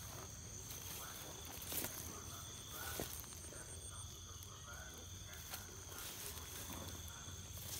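Faint outdoor ambience of insects trilling steadily at two high pitches, with a few light clicks or knocks about two and three seconds in.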